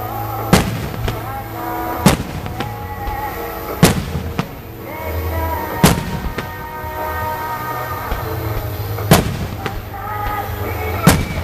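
Aerial firework shells bursting in sharp booms, about six at irregular intervals one to three seconds apart, over background music.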